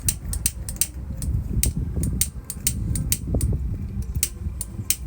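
A lighter struck over and over without catching: rapid, uneven clicks, about four a second, over low handling noise. It fails to light, a failure taken to mean it has run out of fuel.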